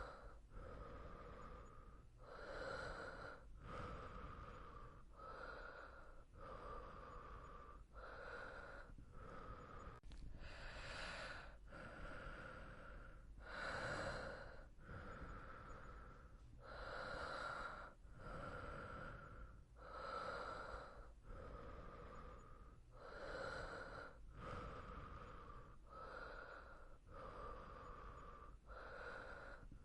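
Soft, slow breathing of a sleeping person, faint and even. Each breath in and out takes about three seconds.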